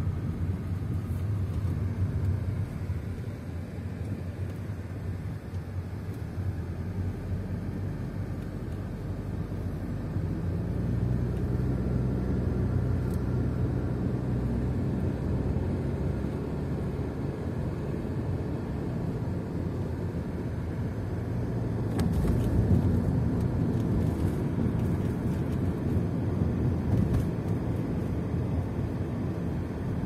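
A car's engine and road noise heard from inside the moving car: a steady low hum. The engine note rises and grows stronger for several seconds around the middle.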